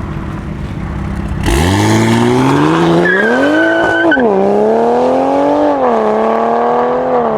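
A Toyota GR Supra Mk5's turbocharged engine revs up suddenly and hard about a second and a half in, climbing in pitch with a tyre squeal over it for about a second. The revs dip briefly near the middle, climb and hold again, then fall away at the end.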